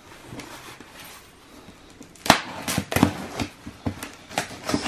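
Packing tape being picked loose and peeled off a cardboard box: faint scratching at first, then from about two seconds in a run of short, sharp rips and crackles as the tape pulls away from the cardboard.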